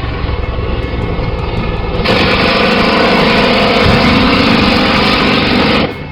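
Steady engine drone from a war-scene sound effect, joined about two seconds in by a much louder rushing noise that holds for about four seconds and cuts off suddenly near the end.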